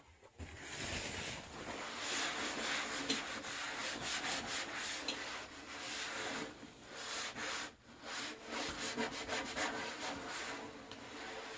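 A hand scrubbing and wiping dirt off the sprayed-down metal underside of a Compaq ProLinea 4/25S computer case: a scratchy rubbing in uneven strokes, with a couple of brief pauses.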